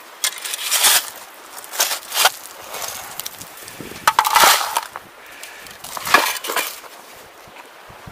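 Shovel digging into rocky creek-bank gravel: about four crunching, scraping strokes a second or two apart, stones clinking against the blade.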